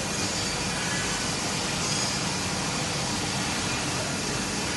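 Steady, even background noise of a machine-shop hall: machinery and ventilation hum with no distinct strokes or tones.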